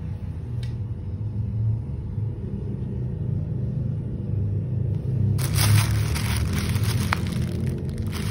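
Plastic food packaging crinkling as it is handled, starting about five seconds in, over a steady low rumble.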